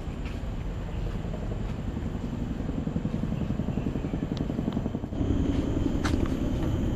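A motor vehicle running: a steady low rumble that grows louder about five seconds in.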